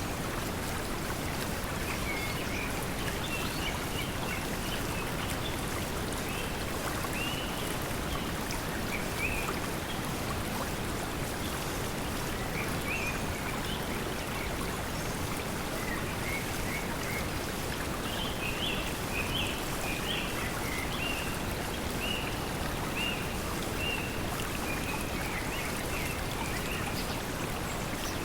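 Steady pink noise blended with the sound of flowing water, as a constant even hiss. Birds chirp now and then over it, most often about two-thirds of the way through.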